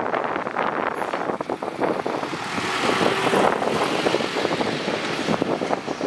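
Heavy construction machinery working: a dense, steady noise full of small crackles, louder and hissier for about a second around the middle.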